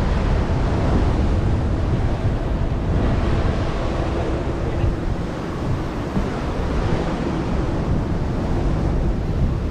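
Sea waves surging and breaking against the rocks of a harbour breakwater, under steady, strong wind buffeting the microphone.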